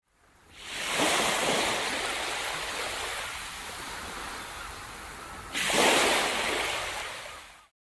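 Sea waves breaking and washing up a beach. One wave swells over the first second and slowly ebbs, a second breaks about five and a half seconds in, and the sound cuts off just before the end.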